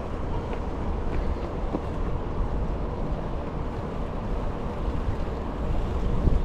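Steady low rumble of wind on the microphone and tyre noise from a bicycle riding along a paved trail.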